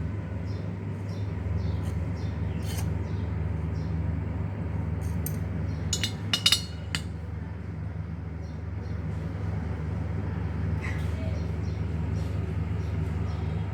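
A few sharp metallic clinks of parts and tools being handled during a grinder bearing repair, loudest in a quick cluster about halfway through, over a steady low hum.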